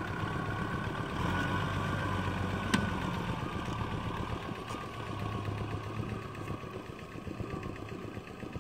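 Farm tractor engine running steadily as the tractor drives away across a muddy paddy, its sound slowly fading. There is a single sharp click a little under three seconds in.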